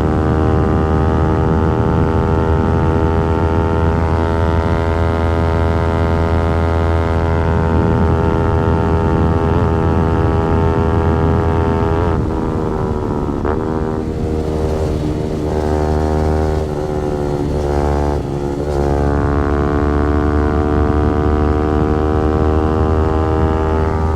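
Yamaha R15 V4's 155 cc single-cylinder engine and exhaust pulling hard at high revs on the highway, its pitch slowly climbing. About halfway through there are several brief dips and recoveries in pitch as the throttle is eased and reopened or gears change, then it settles into a steady high run again.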